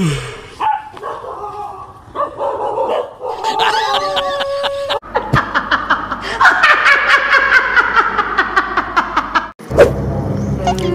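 A dog barking and yelping for the first few seconds, then a woman's loud, rapid laughter for about four seconds, which cuts off suddenly near the end.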